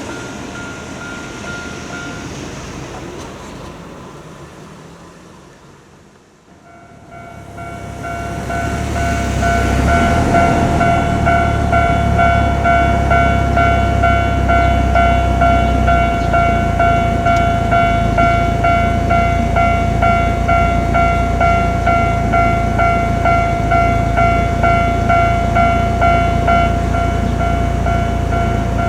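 A Japanese level-crossing warning bell starts about seven seconds in and rings on in an even, rapid pulse (the "kan-kan" crossing alarm). Under it a train's low rumble builds and holds. Before that, an earlier crossing's sound fades away.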